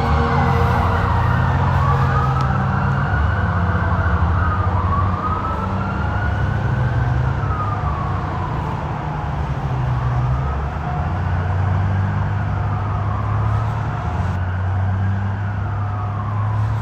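Police car siren wailing, its pitch rising and falling in slow sweeps a few seconds long, over a low rumble.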